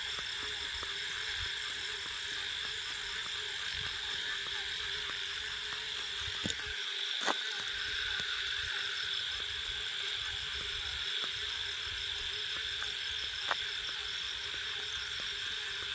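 Night chorus of crickets and frogs: a steady, high trilling that does not change, with three short sharp clicks, two about halfway through and one near the end.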